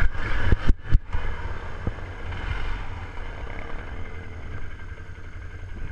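ATV engine running at low speed, with a few sharp knocks in the first two seconds.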